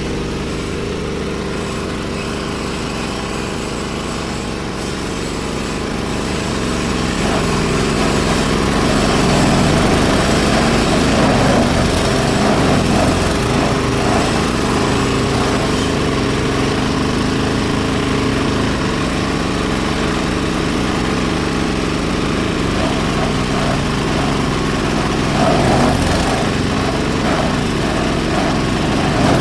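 An 8 hp diesel engine driving a G-30 chopper-grinder, running steadily with no break; the sound grows louder about seven seconds in.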